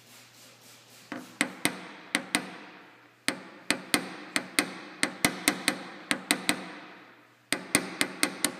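Paintless dent repair tapping: a plastic tap-down tool is struck in quick, sharp taps, about three or four a second, in runs with short pauses, each tap ringing briefly on the hood panel. It is knocking down high spots that were pushed up past flat.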